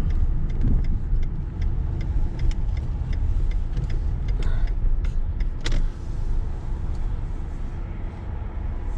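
Low rumble of a Nissan X-Trail's engine and tyres heard from inside the cabin as it rolls slowly through a parking lot. A run of light ticks sounds throughout, with one sharper click just before the six-second mark.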